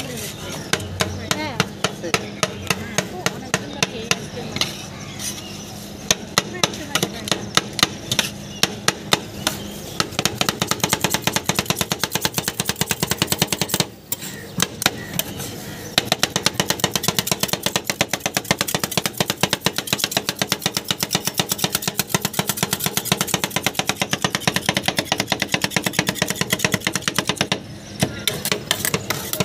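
Two metal spatulas rapidly chopping and scraping ice cream on a stainless-steel cold plate: a fast, unbroken run of sharp metallic clacks, several a second, pausing briefly twice.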